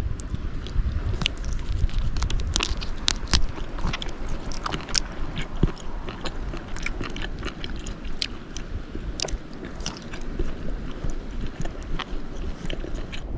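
A piece of shell scraping and clicking against the inside of a shell bowl as its soft contents are scooped out. The clicks come irregularly, many to the second, over a low rumble of wind on the microphone.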